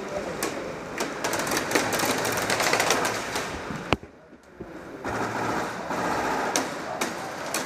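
Airsoft electric guns firing rapid full-auto bursts, a fast mechanical rattle of shots. A sharp crack comes about four seconds in, followed by a brief lull before the rattle resumes.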